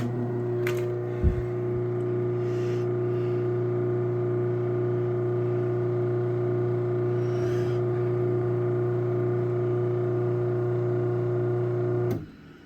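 Craftsman 1/2 hp chain-drive garage door opener (model 139.53930DM) running the door through its travel: a steady motor hum with a low thump about a second in. The motor cuts off abruptly near the end as the door reaches its limit.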